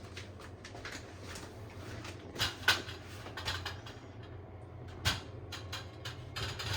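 Bathroom shelf parts being handled: a string of light clicks and knocks, with sharper knocks about two and a half seconds in and about five seconds in, over a steady low hum.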